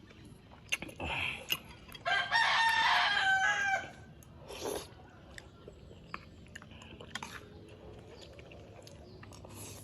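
A rooster crowing once, about two seconds in, one call lasting under two seconds, with a few short, fainter sounds around it.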